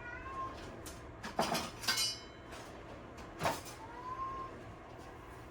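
Knife knocks and a clatter on a cutting board as potatoes are cut up, four or five sharp strikes, with short faint high-pitched cries near the start and about four seconds in.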